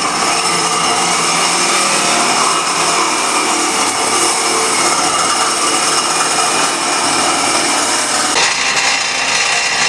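Pedestal bench grinder running, with a metal tube held against the wheel, making a continuous grinding noise. The sound changes character about eight seconds in.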